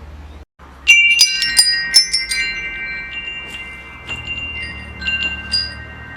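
Metal wind chimes struck in a quick cluster about a second in, several high tones ringing on long after. A few softer strikes follow near the middle and toward the end.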